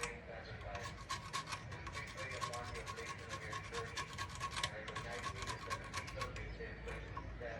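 Rapid, uneven hand rubbing strokes on a motorcycle part being cleaned down for restoration.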